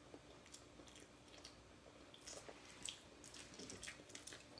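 Faint chewing of soft bread close to the microphone, with scattered soft wet mouth clicks.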